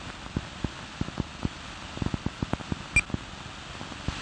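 Crackle and irregular pops of a 16mm sound film's soundtrack running over its leader, with a steady hiss beneath. There is a short high blip about three seconds in.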